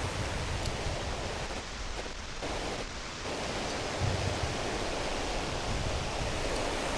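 Steady rush of river water pouring over a low dam, with irregular low wind buffeting on the microphone.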